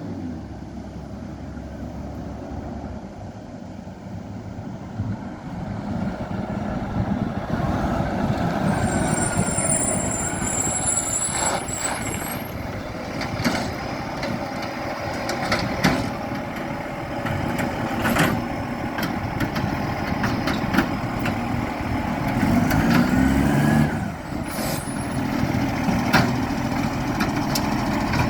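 Garbage truck running, its engine sound carrying an exhaust leak, with several clanks and knocks as it works. A high whine sounds for a few seconds about nine seconds in.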